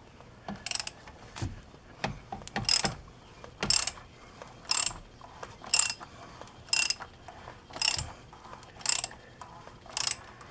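Hand ratchet with a 10 mm socket running an oil drain plug into the oil pan. The pawl clicks in short bursts on each back-stroke, about once a second.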